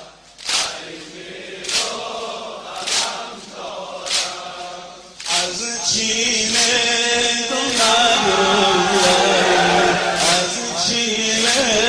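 Male voices chanting a Muharram mourning lament (noha), kept in time by sharp beats about once every 1.2 seconds. From about five seconds in, a fuller group of voices sings over the beat.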